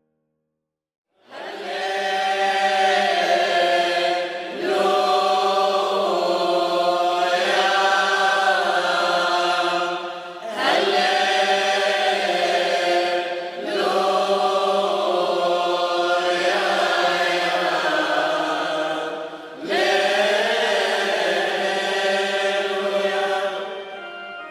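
Voices chanting in long, held phrases, entering about a second in, with short breaths between phrases.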